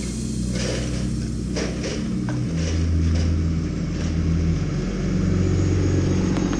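Engine of a medium-duty flatbed delivery truck running as the truck drives slowly up a gravel alley. Its note rises about two and a half seconds in and eases off again about two seconds later.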